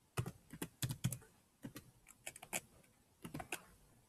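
Computer keyboard typing: irregular keystrokes in three short bursts with brief pauses between them.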